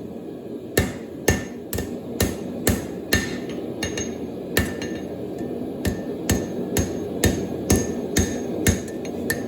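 Hammer striking steel on an anvil while forging a knife blade, about two blows a second, each with a short metallic ring. A steady low rushing noise runs underneath.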